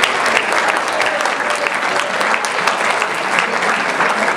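A large seated audience applauding: dense, steady clapping with a few voices mixed in.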